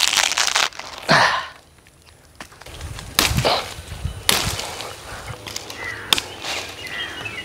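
Machete hacking at thin green tree branches: swishes through leafy twigs, then a few sharp chops into the wood in the second half.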